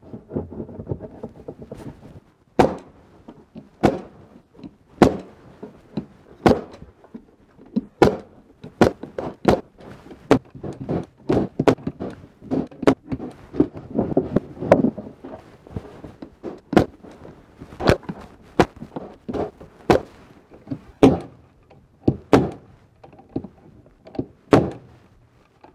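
A pneumatic 16-gauge stapler fires 2-inch staples into the joints of a wooden beehive super, a sharp shot about once a second, with lighter knocks and the handling of the wooden box between shots.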